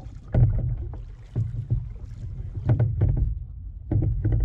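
Kayak paddle strokes dipping and splashing in the water, a few strokes about a second apart.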